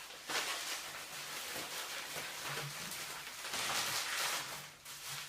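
Bubble wrap and plastic packaging rustling and crinkling as a wrapped part is handled and tugged at, swelling briefly just after the start and again for about a second past the middle.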